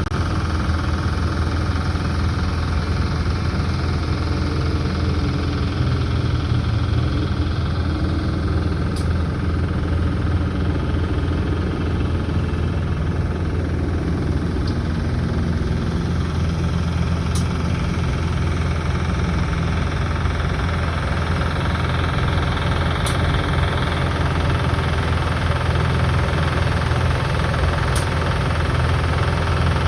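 Coal in a mine face crackling and sizzling like hot frying oil, with a few sharp clicks, over a steady low rumble. The narrator takes the noise to come from vibration causing friction within the coal, though the coal shows no visible movement.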